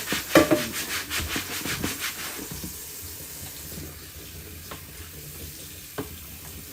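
Knife strokes on a cutting board: a quick, even run of cuts, about five a second, that stops after about two seconds, then two single knocks.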